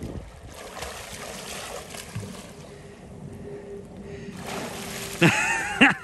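Water splashing and sloshing around a person swimming in a shallow creek, louder about four seconds in, then a loud wordless shout near the end.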